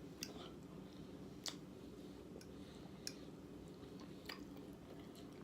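Faint chewing at close range, with a few soft sharp mouth clicks spread a second or so apart.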